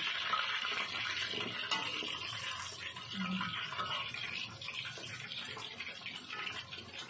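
Chicken pieces deep-frying in hot oil in a wok: a steady sizzle with small crackles and pops.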